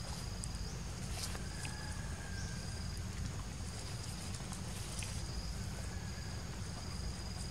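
Outdoor background noise: a steady low rumble with faint thin high tones that come and go, and a few brief high sounds around a second in and again about five seconds in.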